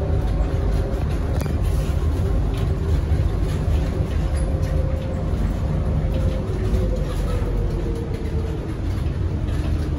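Cabin of a Bombardier Innovia APM 100 rubber-tyred people mover running along its guideway: a steady low rumble with a faint whine that drifts up and down in pitch.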